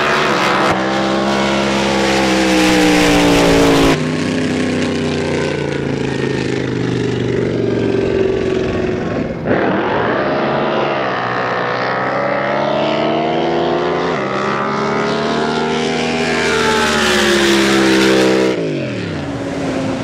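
Supercharged drag boat engines running at high revs during a run, several pitched tones sinking as the boats pull away. The sound changes abruptly twice, then climbs and falls again, with a steep drop in pitch near the end as a boat passes.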